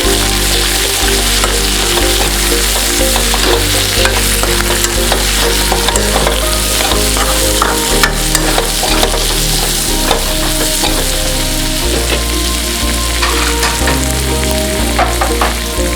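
Chicken liver and bamboo shoot sizzling as they fry in a pan, stirred with a utensil that clicks and scrapes often.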